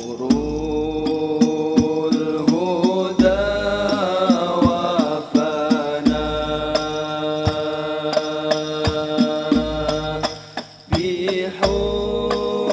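A Banjari ensemble performing a sholawat: a group of male voices chanting in unison over rebana frame drums beating a steady rhythm. The singing drops away briefly about ten seconds in, then comes back.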